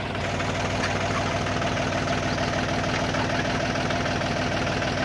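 Tractor's diesel engine idling steadily with a fast, even firing beat.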